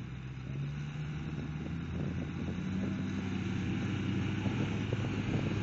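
4x4 engines running under load during a rope-tow recovery of a vehicle grounded in mud. The engine note steps up in pitch and grows louder in the first couple of seconds, then holds.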